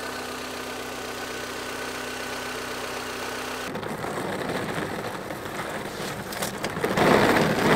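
Car engine idling with a steady hum. About four seconds in, the lowered Honda starts rolling over gravel and sand: tyres crunching and the mud flaps dragging on the ground, louder in the last second.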